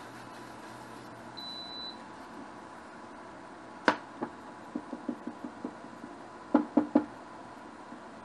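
An induction cooktop gives one short high beep as a control button is pressed. A spatula then clicks and taps against the frying pan of simmering sauce: a sharp click about four seconds in, a run of light taps, and three louder knocks near seven seconds.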